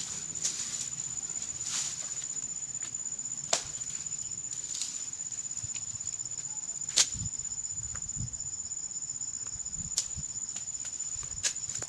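A steady, high-pitched insect trill, with a few sharp clicks scattered through it, the loudest about seven seconds in.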